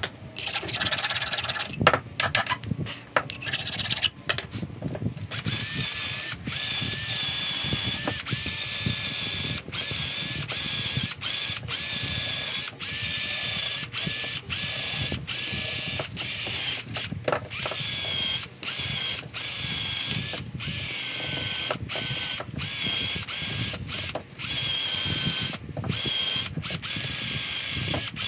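Power drill spinning a wire wheel brush against the rusty steel head of a ball peen hammer, scrubbing off rust. A steady motor whine over a high scratchy hiss, broken by many brief pauses.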